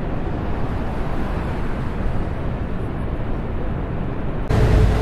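Steady rushing roar of water from Niagara Falls, heard through the spray and mist. About four and a half seconds in, it changes abruptly to a louder rush with a steady low hum.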